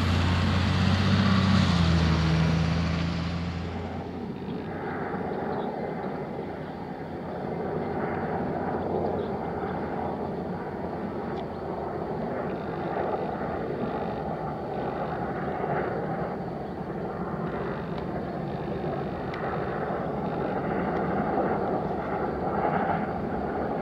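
A bus engine pulling away for the first few seconds, then the steady jet noise of Avro Vulcan XH558's four Rolls-Royce Olympus turbojets as the bomber flies in low on final approach with its landing gear down.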